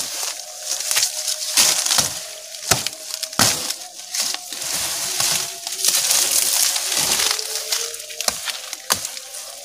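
Leafy branches of a felled tree being broken off and stripped: crackling, rustling foliage with many sharp snaps of breaking wood.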